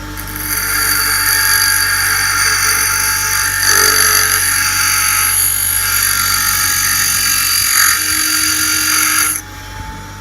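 RYOBI bench grinder running with a steady whine that the owner puts down to its bearings, which probably need replacing. Steel is held against the grinding wheel, giving a loud, harsh grinding that stops near the end while the motor keeps running.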